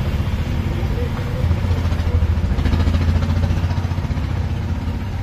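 Steady low engine hum of road traffic, swelling louder for a few seconds in the middle.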